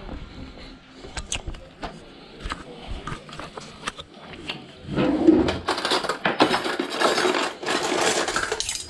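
Scattered light knocks and handling sounds, then from about five seconds in a kitchen cutlery drawer pulled open and steel cutlery rattling and clinking as it is rummaged through.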